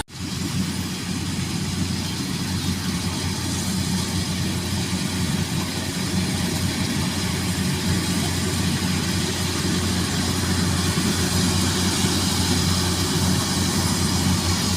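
Rice combine harvester engine running steadily under load.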